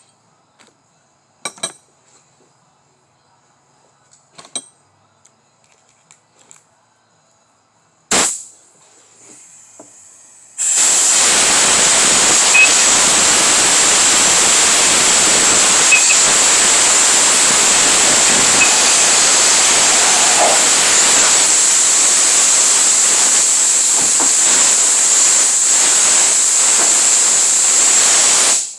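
A few faint clicks, a sharp bang about eight seconds in, then a loud steady hiss that runs for about eighteen seconds and cuts off suddenly.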